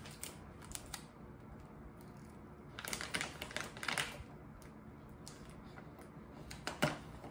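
Adhesive tape being worked onto snack packages: scattered light clicks, then a burst of crinkling and rustling of packaging about three to four seconds in, and a single sharper knock near the end.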